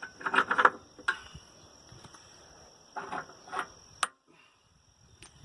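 Metal clicks and knocks of tractor dual-wheel clamps and bolt hardware being handled and worked loose: a short cluster near the start, another about three seconds in, and one sharp click about four seconds in.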